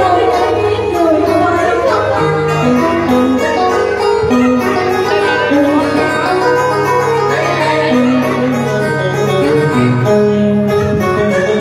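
Live band music: an instrumental passage with a melody over a steady bass line.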